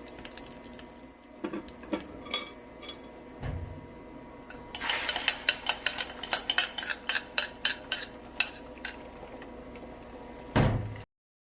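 A utensil beating the egg mixture in a bowl: a quick run of sharp clinks against the bowl, about four or five a second, for roughly four seconds, after a few light taps. A single heavier knock comes near the end, then the sound cuts off.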